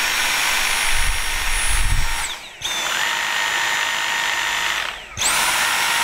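Dyson V7 Trigger handheld cordless vacuum running in three short runs, its motor whining up to speed and winding down each time the trigger is released. The middle run has a lower whine, at the other power setting.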